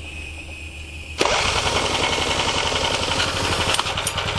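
Small portable generator engine running on HHO (oxyhydrogen) gas catches abruptly about a second in, after a faint steady hum, and keeps running with a fast, even firing beat.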